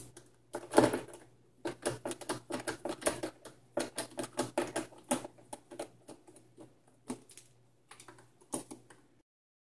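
A screwdriver with a T15 security bit turning screws in the plastic base of a Nespresso Vertuo Next coffee machine: a quick, uneven run of small clicks and ticks, with a louder knock about a second in. The sound cuts off suddenly about nine seconds in.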